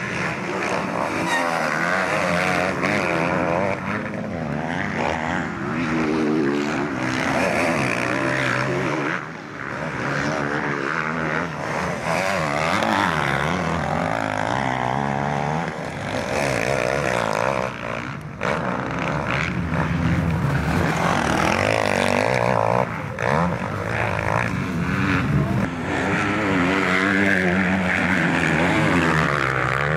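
Several motocross motorcycle engines revving hard, several at once, their pitch rising and falling and overlapping as the bikes accelerate out of a corner and pass by.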